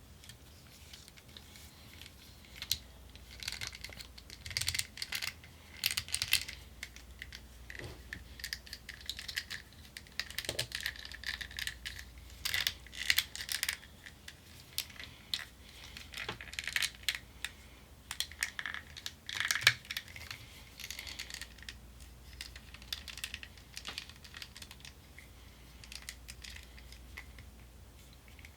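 Toy packaging and a plastic action figure being handled: irregular crinkling, rustling and light plastic clicks.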